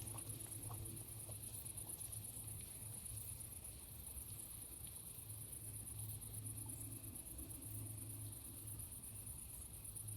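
Insects chirring steadily in a very high, fast-pulsing buzz, with a low steady hum underneath.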